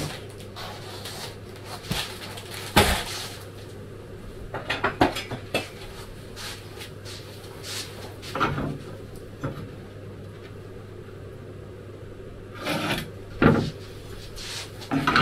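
Scattered knocks, clicks and rustles of a sheet of polyethylene foam and measuring tools being handled on a wooden bench, loudest about three seconds in and again near the end, over a steady low hum.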